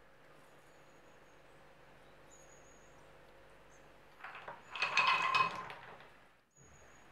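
Chopped chocolate pieces tipped off a board into a pan of condensed milk: a brief clatter of chunks tumbling and landing, starting about four seconds in, after faint room hiss.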